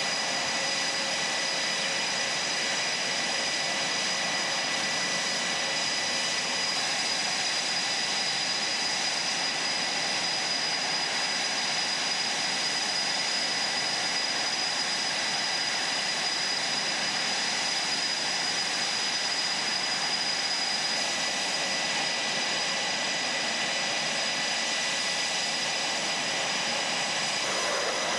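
Twin-engine F/A-18F Super Hornet jet engines running steadily at taxi power: an even jet rush with high steady turbine whine tones. Shortly before the end the noise shifts lower and fuller.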